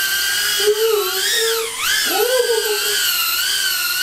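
Motors and propellers of an Emax EZ Pilot Pro micro FPV drone whining in flight, the pitch wavering up and down with throttle, dipping sharply about two seconds in and climbing back.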